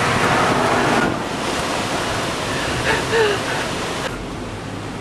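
Storm wind rushing over the microphone as a steady noise, loudest in the first second. It drops off about four seconds in, leaving a low steady hum.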